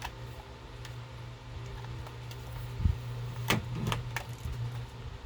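Plastic scale-model parts being handled while the model's rear wheels are glued onto its stand: a low thump about three seconds in, then three sharp clicks, over a steady low hum.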